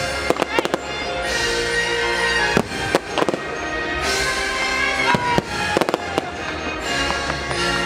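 Fireworks bursting in clusters of sharp bangs and crackles over loud Christmas show music.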